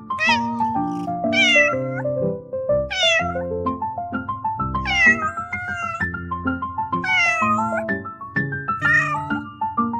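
Kitten meowing about six times in high calls that rise and fall, the one about five seconds in longer than the rest, over background music.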